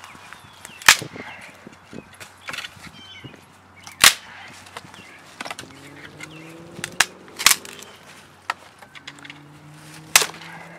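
Dry sticks snapping as firewood is broken to length: about five loud, sharp cracks a few seconds apart, with smaller cracks and crackles between.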